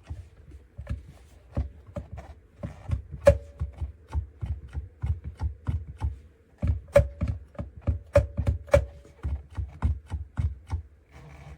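Donner DSP-001 sustain pedal being pressed and handled, giving an irregular run of clicks and dull knocks at about three or four a second. A few of the knocks carry a short ring.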